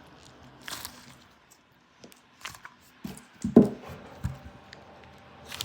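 A homemade squishy made of tape filled with slime being squeezed by hand for ASMR: irregular soft squishes and small clicks, the loudest about three and a half seconds in.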